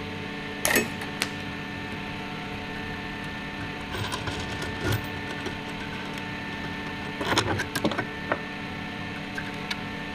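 Desktop filament extruder running with a steady hum of several even tones, while its filled plastic spool is handled and pulled off the winder with sharp clicks and short clatters, loudest about a second in and again around seven to eight seconds in.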